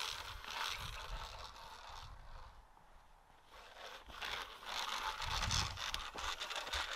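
Tape measure being pulled out to measure a long distance, a zipper-like scraping and rustling of the tape, with a quieter stretch in the middle.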